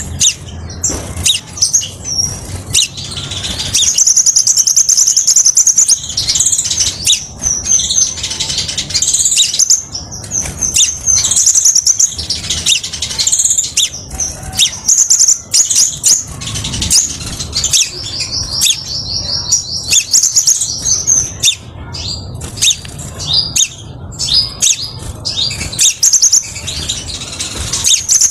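Male crimson sunbird singing: high, very fast trills and sharp chirps in repeated phrases, some held for a few seconds, with short pauses between.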